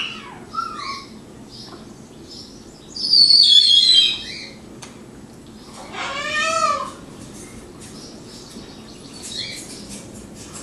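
High-pitched animal cries, a few separate ones: a short cry just after the start, a long, loud, shrill one about three seconds in, and a rising-then-falling cry about six seconds in.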